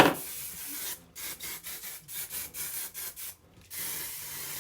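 Hair being brushed: quick rubbing strokes, about three a second, then a steady hiss lasting over a second near the end.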